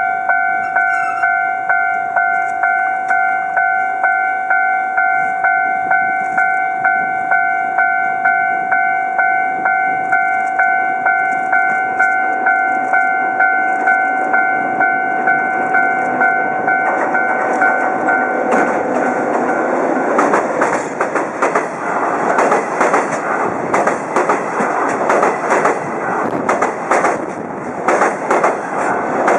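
A two-tone warning bell rings evenly, about twice a second, as a JR Freight DD51 diesel-hydraulic locomotive draws near. About two-thirds of the way in, the locomotive and its container wagons reach the steel truss bridge and their wheels clatter loudly over the rail joints, drowning out the bell.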